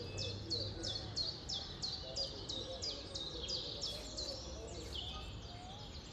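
A bird calling in a fast, even series of short downward-sweeping high chirps, about three a second, over a low steady background murmur.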